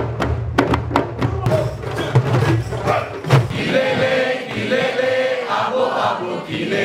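Djembe drums struck in a fast, even rhythm for about the first second and a half, then a crowd chanting together in long held notes with scattered drum hits.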